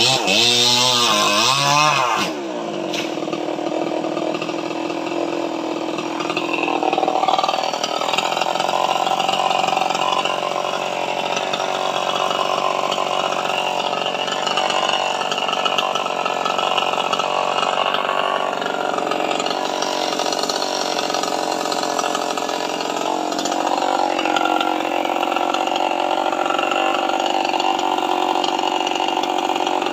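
Chainsaw running continuously. For about the first two seconds its pitch swings up and down, then it drops and holds lower and steadier for the rest.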